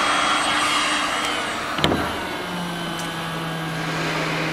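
Electric heat gun blowing hot air over PVC tarpaulin with a steady rush of air and a faint motor whine that fades after about a second. Just under two seconds in there is a single knock as the gun is set down on the table, and then a low steady hum.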